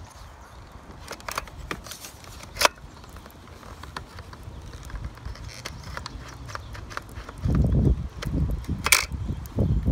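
Sharp plastic clicks and snaps as a clear plastic toy water-bead blaster is handled and its parts are worked. The sharpest click comes a little over two and a half seconds in, and from about seven and a half seconds in a low rumbling handling noise joins.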